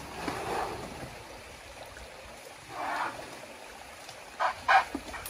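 Shallow forest stream trickling, with a short call about three seconds in and two short, loud animal calls in quick succession near the end.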